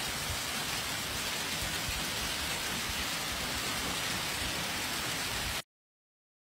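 Heavy downpour in a hailstorm: a steady hiss of precipitation striking the ground, with irregular low thuds, cutting off abruptly about five and a half seconds in.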